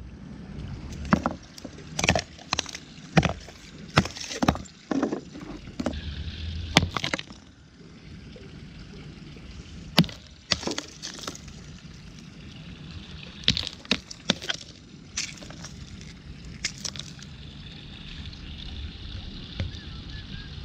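A block of ice frozen around a flashlight being knocked against brick paving and broken apart: repeated sharp cracks and clatters of ice. The knocks come about once a second for the first several seconds, then more sparsely.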